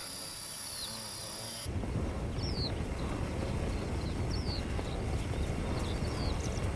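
A wildebeest herd galloping over grassland: a dense, continuous drumming of many hooves that comes in abruptly about two seconds in. A short bird chirp repeats every second or two over it. Before the hooves, a steady high insect trill.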